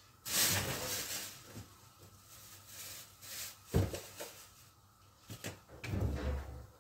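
Kitchen handling noises, like a cupboard or drawer being opened and containers moved: a rustling scrape near the start, a sharp knock about four seconds in, a few light clicks, and a dull thump near the end.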